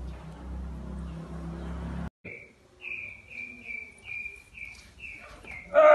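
A low steady hum that cuts off abruptly about two seconds in, followed by a cricket chirping in short, evenly spaced high pulses, about two to three a second. A loud voice breaks in at the very end.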